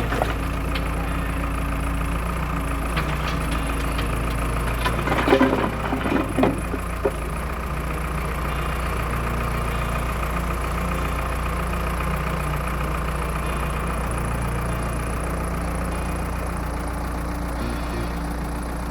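Excavator's diesel engine running steadily, with a few sharp clanks about five to seven seconds in.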